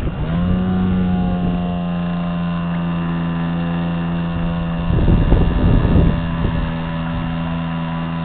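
RC model ship's drive motor, heard from on board, spinning up at the start with a quick rise in pitch and then running at a steady whine as the boat moves across the water. A louder rough patch of noise joins it about five to six seconds in.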